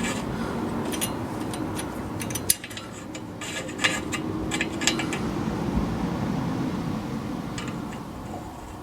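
Scattered light metallic clicks and scrapes from hand work on a car's rear hub assembly, over a steady low background hum.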